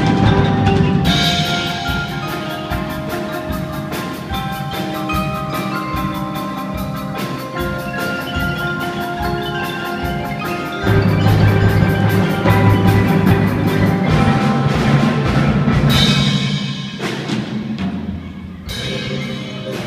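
A youth percussion ensemble plays mallet instruments, marimba-like notes over a low bass line. The music swells louder about halfway through, then thins out briefly near the end before picking up again.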